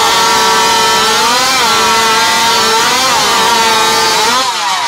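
Modified two-stroke racing chainsaw of up to 81cc with an expansion pipe, running at full throttle through a timed cut. Its high pitch rises briefly about three times, then falls away as the throttle comes off near the end.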